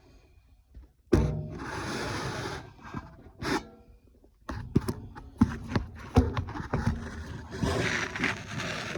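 Scraping and rubbing with scattered knocks and clicks, as the metal parts of a gas furnace are handled and worked on. There is one long scrape about a second in and a busier stretch of clatter and scraping from about halfway.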